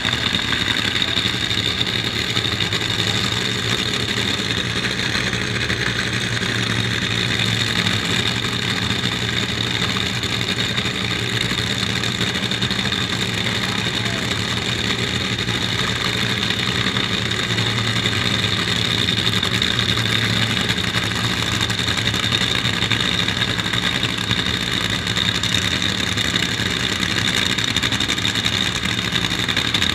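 A small vehicle engine running steadily at low speed, with a constant high whine over it.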